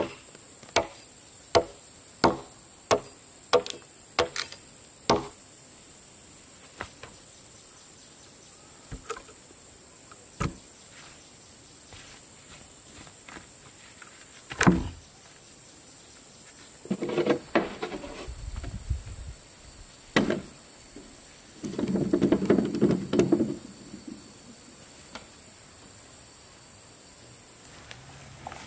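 Rhythmic chopping strikes, about one every 0.7 s, for the first five seconds, then scattered knocks with one loud knock about halfway through. Two short scraping bursts come later, over a steady high insect drone that stops a little past the middle.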